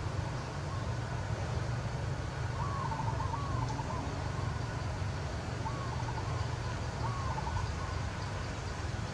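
Steady low rumble with two groups of short warbling calls over it, about three and six seconds in.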